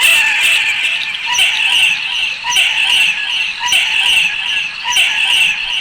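Owl giving harsh, hissing screeches, repeated about once a second.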